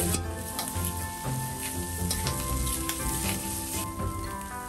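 Garlic, shiitake and black fungus strips sizzling in oil in a stainless steel wok, stirred with a metal spatula that scrapes and taps the pan several times. Soft background music plays underneath.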